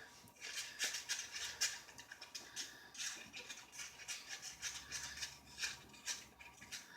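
A gooey slime of hand soap and shampoo being stirred: quick, irregular sticky squishes and scrapes, several a second.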